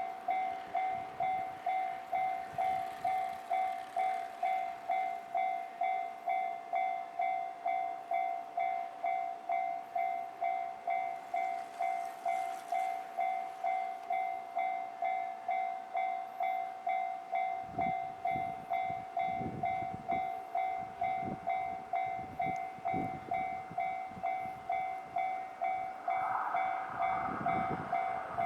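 Japanese level-crossing warning bell ringing steadily, an electronic ding repeating about three times every two seconds. A little past halfway a train passes, its wheels thumping over the rail joints under the bell.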